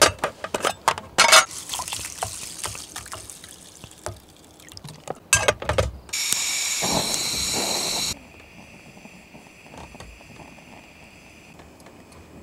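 Metal mess tin clattering as it is handled on a canister gas camping stove, then a few clicks. About six seconds in, the burner's gas hiss comes in loud and steady for about two seconds, then drops to a quieter steady hiss under the mess tin of rice boiling over.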